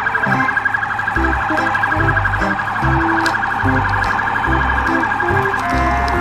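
Police car siren sounding a fast, continuous warble, over a backing track with a pulsing bass line.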